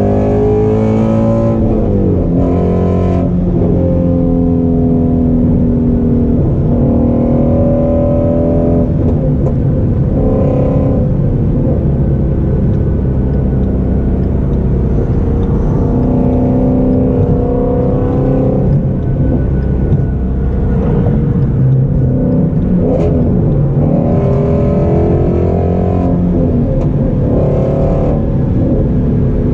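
2017 Ford Shelby GT350's 5.2-litre flat-plane-crank V8 driving at highway speed, heard from inside the cabin. Its note rises and falls several times with throttle and gear changes, between steadier cruising stretches.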